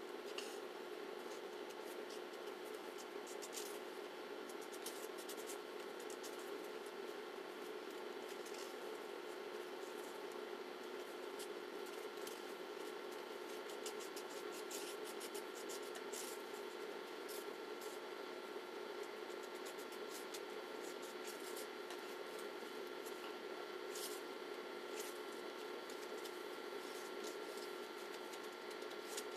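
Small scraping and clicking sounds of a utensil stirring thick lip gloss base and teal pigment powder in a bowl, scattered irregularly over a steady hum.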